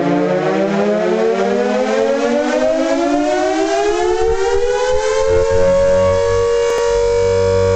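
Civil-defense-style siren sound of an emergency alert alarm winding up. Its several tones rise slowly in pitch for about five seconds, then hold steady at full pitch.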